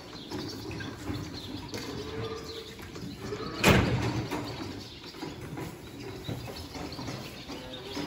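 Clatter and rattling of steel calf-pen gates and feed buckets being handled, with one loud metallic clang about halfway through.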